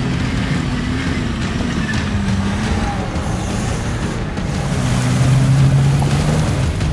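Toyota FJ Cruiser driving hard off-road: the engine revs up and down, loudest a little after five seconds in, while its tyres churn through dirt and mud.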